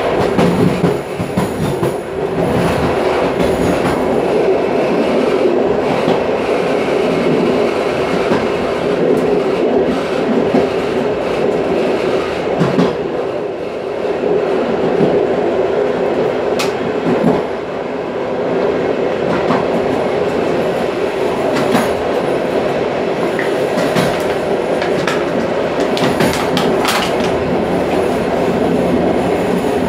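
Train running along the track: a steady rumble of wheels on rails with a constant hum, and a few sharp clicks in the second half.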